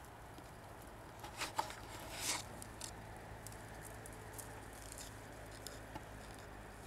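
Dry brambles and leaf litter rustling and crackling as they are handled and trodden, with a couple of louder crackles about a second and a half in and again a moment later, then scattered light ticks.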